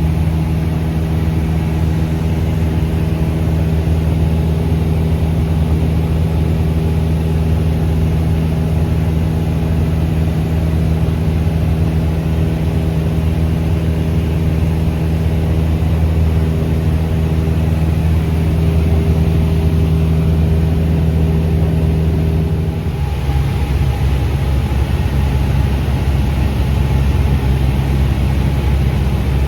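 Cessna 172's piston engine and propeller droning steadily, a low, even hum with several tones. About three quarters of the way through the note shifts abruptly and stays at the new pitch.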